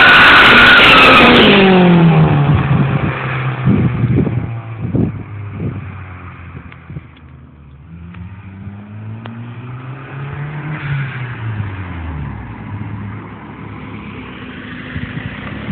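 Turbocharged 1993 Acura Integra's four-cylinder engine as the car drives past fast, very loud at first with its pitch falling steeply over about two seconds. It then runs much more quietly at low revs, with a small rise and fall in pitch a few seconds before the end as the car comes back.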